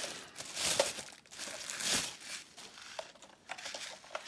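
Packaging around a robot vacuum's charging station being handled and pulled open, crinkling and rustling in irregular bursts, with a few light clicks in the second half.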